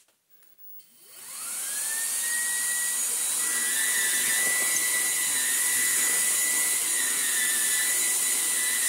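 Vax Blade 4 cordless stick vacuum switched on: about a second in, its motor spins up in a rising whine and settles into a steady high whine with the hiss of airflow as the floor head is pushed over carpet. Its filter is still clogged.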